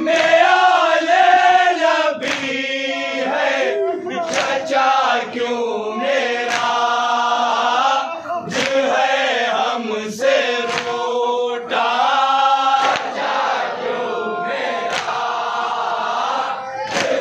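A group of men chanting a Shia noha (mourning lament) together in a lilting melody. Sharp slaps about every two seconds mark the beat, as is usual for the matam (chest-beating) that goes with a noha.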